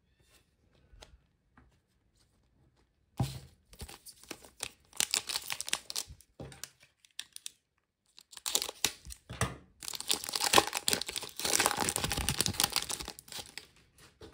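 Foil wrapper of a trading-card pack being torn open and crinkled by hand. The crinkling starts about three seconds in, pauses briefly, then comes back longer and louder in the second half.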